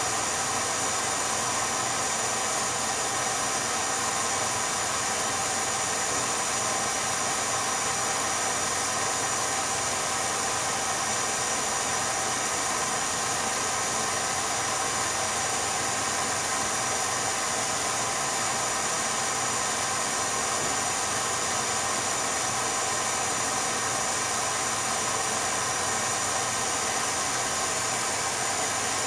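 8mm film projector running: a steady whirring hiss with constant humming tones over it, unchanged throughout.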